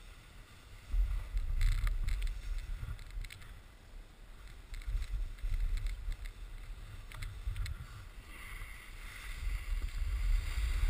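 Wind rumbling in gusts on a camera microphone moving downhill, with the hiss and scrape of a snowboard sliding over packed snow, which grows louder near the end.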